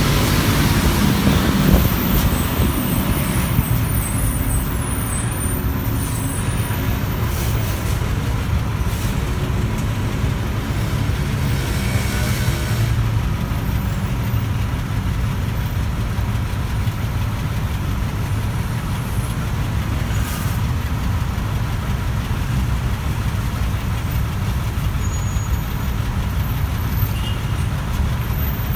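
City bus engine and road noise heard from inside the cabin, rolling at first and then running steadily at idle while the bus waits at a traffic light.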